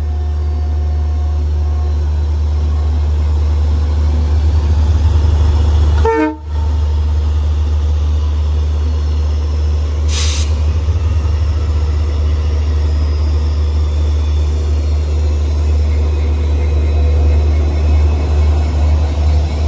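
Passenger train running, a steady deep rumble. It breaks off briefly about six seconds in, and a short hiss comes about ten seconds in.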